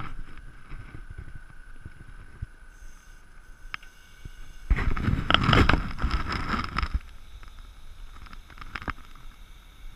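Hydraulically operated rear ramp of a race-car transporter lorry lowering, with a steady high whine. About five seconds in comes a two-second stretch of louder rumbling and clatter.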